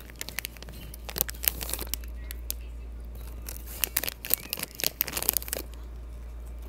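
Crinkling of a Takis chip bag being handled, in two spells of sharp crackles: one about a second in, and a longer one from about four to five and a half seconds.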